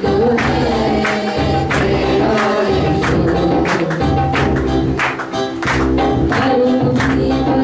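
Christian worship song: voices singing together over a steady percussion beat.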